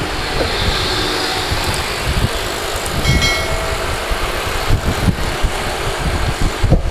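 Yamaha YBR 125 motorcycle on the move: its single-cylinder engine running under gusty wind rumble on the camera's microphone, with road and traffic noise. A brief high tone sounds about three seconds in.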